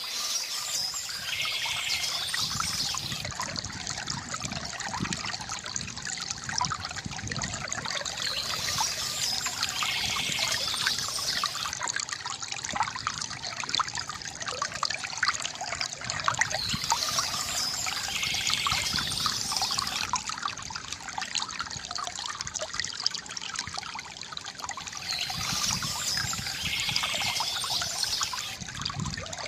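Water from a bamboo fountain trickling and gurgling steadily, with a continuous patter of small splashes.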